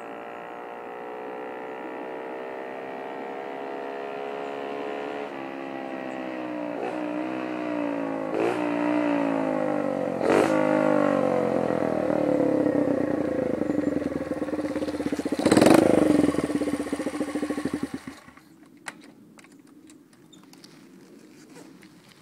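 Sachs MadAss 50's small single-cylinder four-stroke engine, its stock exhaust running without the silencer can, coming closer and louder with its pitch climbing and dipping several times. It then runs lower and steadier and stops abruptly near the end, leaving a few light clicks.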